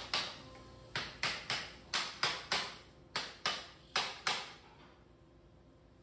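Hand tools working wood: about ten short, sharp strokes in quick, uneven succession, which stop after about four and a half seconds.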